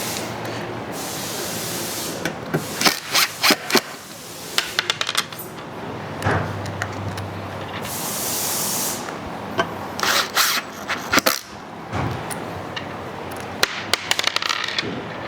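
Cordless impact drill driving Phillips screws through pre-drilled holes, in several short bursts of rapid clattering clicks with stretches of hissing motor noise and tool handling between them.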